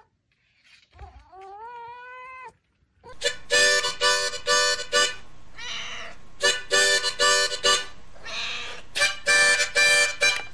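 A cat gives one rising meow about a second in. From about three seconds in, a harmonica plays short repeated chords in a quick rhythm, and a Siamese cat meows between the phrases.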